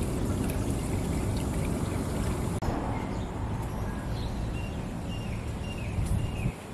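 Swimming pool water running and trickling steadily. A sharp break about two and a half seconds in, after which the running water goes on more softly with a series of short, high chirps.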